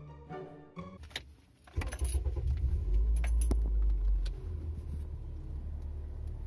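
Background music ends about a second in. Then keys jangle and a car's engine is heard from inside the cabin, louder for a moment a few seconds in, then running steadily.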